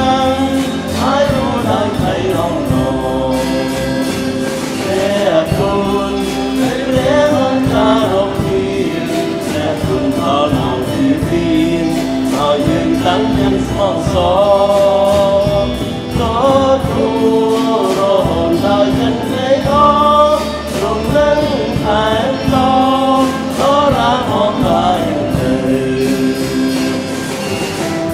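Choir singing a Christian worship song with instrumental accompaniment, held chords under the voices and a steady beat.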